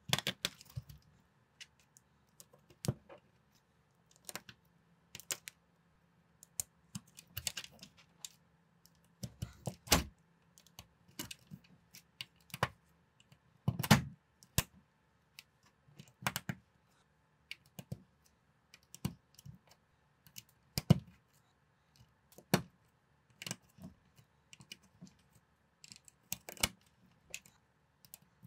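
LEGO-compatible plastic bricks and plates being pressed together by hand: irregular sharp plastic clicks and snaps, a few every couple of seconds, the loudest about ten and fourteen seconds in.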